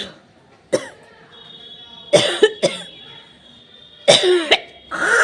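A person with a heavy head cold sneezing again and again: about six short, sudden sneezes, some in quick pairs, a second or two apart.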